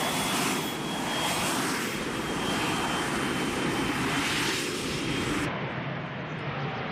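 Jet aircraft engine noise: a steady rushing with a thin high whine over it. About five and a half seconds in the sound turns abruptly duller, as at an edit.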